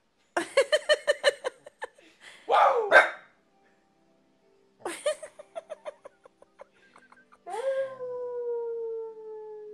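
Pembroke Welsh corgi barking in a quick run of yaps, a short falling yelp, a second fading run of yaps, then a long, slowly falling howl near the end.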